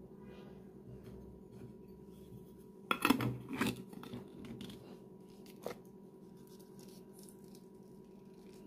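White metal screw lid set on a glass pickle jar and twisted shut, a short cluster of clicks and scrapes about three seconds in, with one small click near six seconds.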